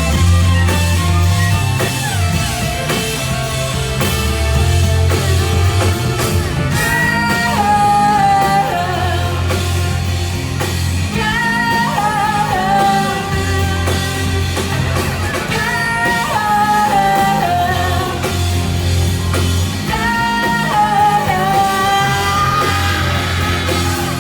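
Live punk/noise-pop band playing a song loudly, with bass, guitar and drums; sung vocals come in about seven seconds in.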